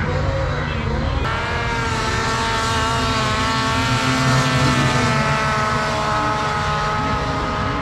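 Several high-horsepower racing snowmobile engines running hard down a drag strip. From about a second in, a high-pitched engine wail holds steady.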